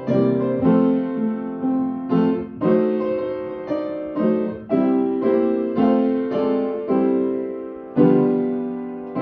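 Piano playing slow chords, each struck and left to ring, about once a second; a louder chord about eight seconds in rings out to the end.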